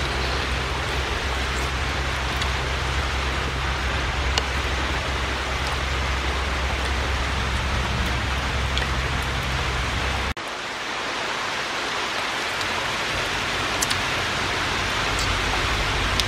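Steady rushing hiss with a few faint clicks; a low rumble underneath cuts off abruptly about two-thirds of the way through.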